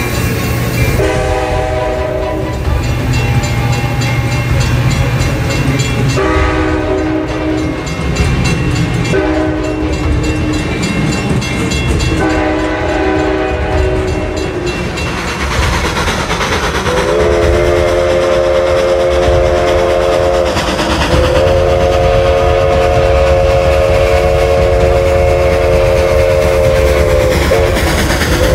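Train horn sounding a series of blasts, four shorter ones followed by two long ones in the second half, over the steady rumble of the moving train.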